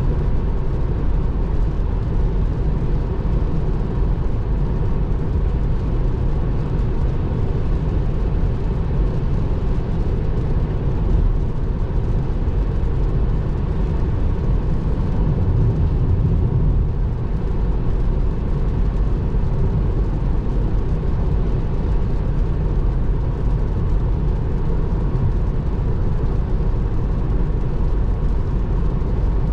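Steady road noise inside the cabin of a Tesla Model 3 driving on a wet highway: tyres hissing on the wet road and rain on the car, with no engine sound.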